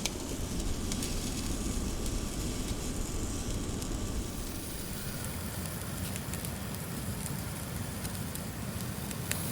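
Yakitori skewers grilling over a fire: a steady hiss with scattered faint crackles.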